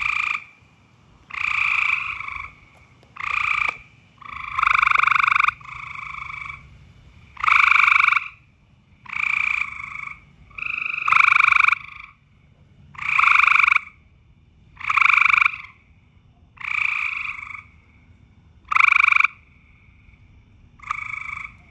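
Frogs croaking loudly in a steady series, one call under a second long about every one and a half to two seconds: breeding calls in mating season.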